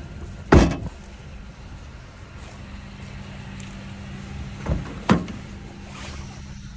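Honda Element's rear hatch slammed shut with one loud bang about half a second in. Then, around five seconds in, two quicker clunks as the front door handle is pulled and the door unlatches open.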